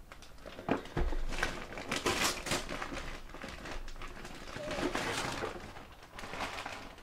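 Shiny gift-wrapping paper being torn off a cardboard box and crumpled by hand: irregular rustling and crackling with a few knocks and a thump about a second in.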